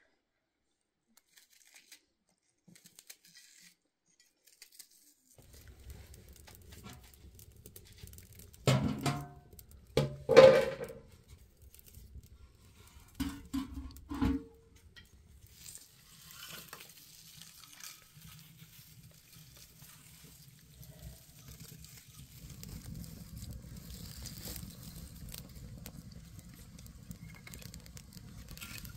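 Dry brushwood fire catching in a clay stove: faint crackling and a low rush of flames that grows in the second half. Several loud knocks come about a third of the way in.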